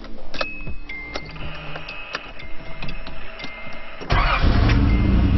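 Nissan 300ZX Turbo's 3.0 V6 (VG30ET) engine fires up about four seconds in, after a few light clicks, and settles straight into a steady idle. This is the first start after the crank angle sensor was replaced, and the engine runs normally.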